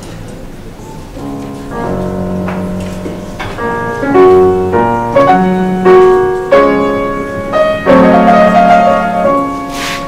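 Background piano music: a slow melody of held notes, each struck and left to ring.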